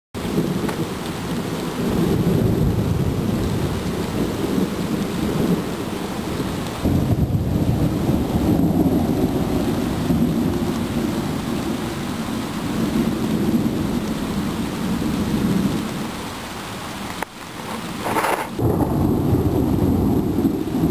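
Thunder rumbling continuously through steady rain, the low rumble swelling and easing. It dies down briefly near the end, then rolls on again.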